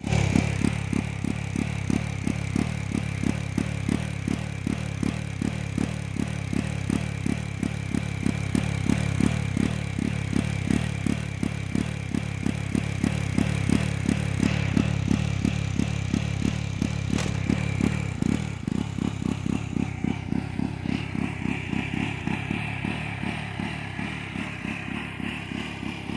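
Jawa 42's single-cylinder engine running steadily with an even, pulsing exhaust beat and a light mechanical clatter, not revved hard. This is the bike whose owner reports a misfire on pick-up.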